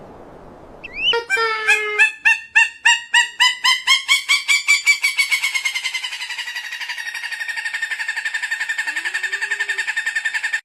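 Peruvian thick-knee calling: a run of sharp, piping notes that starts slow and speeds up into a fast, even rattle, then stops abruptly.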